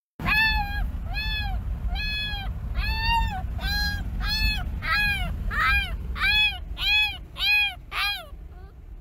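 Dachshund puppy crying in a string of about fifteen short, high whining howls, each rising and falling in pitch, coming quicker toward the end before stopping. Low road rumble from inside the moving car underneath.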